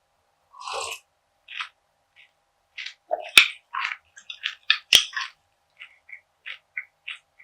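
Close-miked crunchy chewing of a perilla seed gangjeong bar: a run of irregular crisp crackles, with two loud sharp cracks in the middle as it is bitten and crushed.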